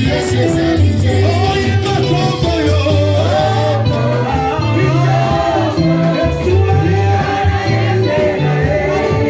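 Upbeat gospel music: voices singing a melody over a steady, rhythmic low bass line.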